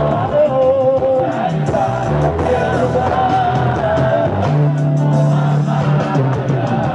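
Music with a singing voice over instrumental accompaniment and a sustained bass line.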